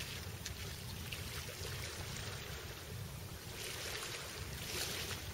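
Small waves washing on a pebble shore, a steady hiss that swells twice in the second half, over a low steady rumble.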